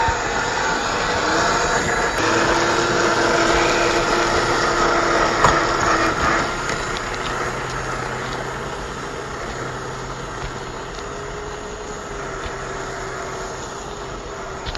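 Electric drive motor and geartrain of a Traxxas TRX-4 RC crawler whining steadily as it drives. The whine steps slightly higher about halfway through and grows quieter in the second half, with a couple of sharp knocks early on.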